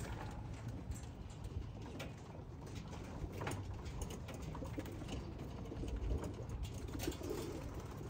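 Racing pigeons in a wire aviary cooing, more so in the second half.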